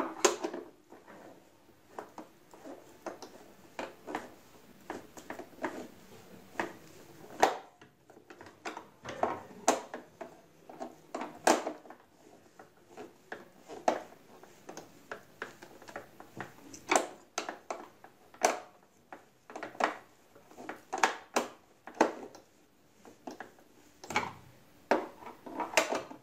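Irregular clicks, taps and knocks of hands and a screwdriver working on the plastic housing of a Singer Promise 1408 sewing machine as its screws are refitted and tightened. The knocks come singly and in short clusters, a few of them sharper and louder than the rest.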